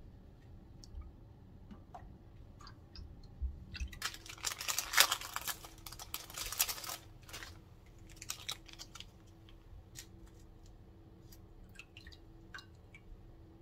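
Small plastic packet crinkling and tearing open, a dense crackling burst of about three seconds, with scattered light clicks and taps before and after it.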